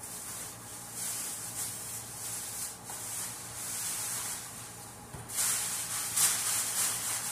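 Thin plastic shopping bags rustling and crinkling as they are handled and unpacked, in uneven bursts that get louder for a couple of seconds after about five seconds in.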